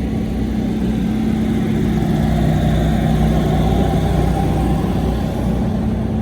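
A motor running steadily: a low, even hum with rumble.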